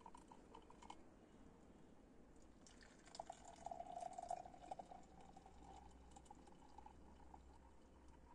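Tea poured from a glass teapot into a glass mug, a thin trickling stream with small splashes. A brief pour comes at the start, then a longer one from about three seconds in that fades out near the end.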